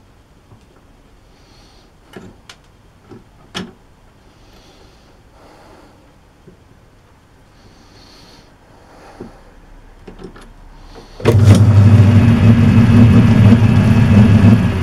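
A few light clicks and knocks, then about eleven seconds in a metal-turning lathe's electric motor switches on abruptly and runs with a loud, steady hum.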